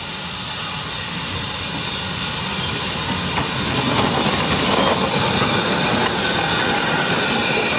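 Small saddle-tank steam locomotive and its wagons rolling past close by, the wheels and running gear clattering on the rails. The noise grows louder over the first few seconds as the engine draws level, then holds steady.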